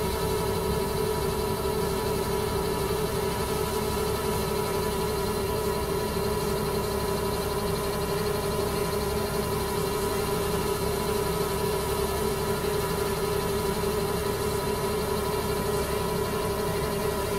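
Xiaomi Mi Drone 4K quadcopter hovering in place: a steady propeller hum with one strong low tone and fainter higher tones above it.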